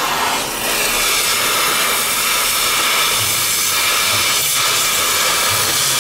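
Gas welding torch hissing steadily and loudly as it works the exhaust pipe under a car, throwing sparks.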